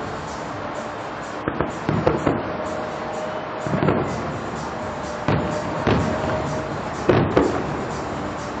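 Distant fireworks shells bursting: a string of about eight echoing booms in small clusters, over a steady background hiss.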